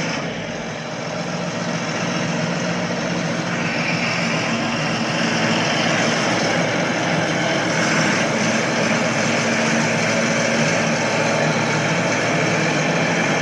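Heavy diesel engine of harvest machinery running steadily, growing louder about three and a half seconds in.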